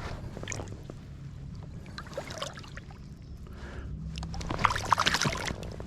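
Water splashing and dripping at the side of a kayak as a largemouth-size bass is let go back into the lake, with small knocks and clicks against the hull; the loudest splash comes about four and a half seconds in.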